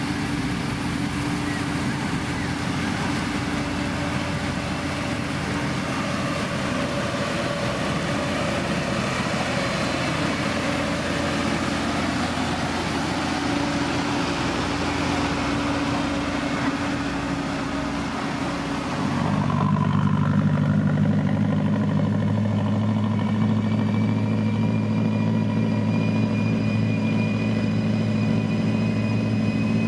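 Heavy diesel road-construction machinery running steadily. About two-thirds of the way through the sound switches abruptly to a louder, deeper engine drone with a steady high whine over it, as a different machine takes over or comes close.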